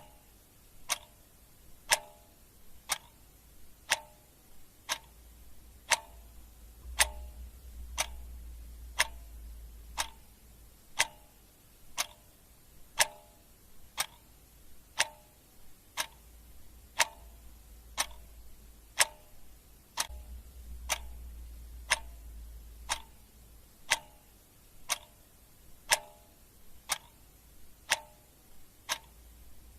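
Clock ticking steadily at one tick a second.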